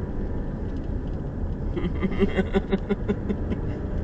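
Steady low road rumble of a moving vehicle heard from inside the cabin. About halfway through, a rapid run of short pulsing tones, roughly six a second, lasts just over a second and a half, then stops.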